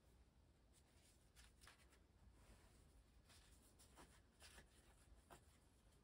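Near silence with a few faint, brief rustles of paper being handled: a wrapped sweet being unwrapped and a small paper case being folded.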